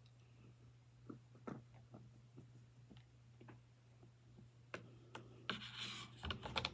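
Close-miked eating and handling sounds from someone eating baby powder: scattered soft clicks and taps, then a louder crackly rustle with several sharp clicks near the end, over a steady low hum.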